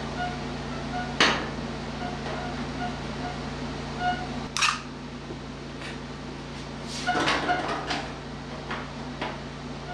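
A few light clicks and scrapes of a small sheet-metal patch piece against the steel of the car body as it is held up and test-fitted, over a steady low shop hum. One click comes about a second in, a sharper one near the middle, and a short cluster about three quarters of the way through.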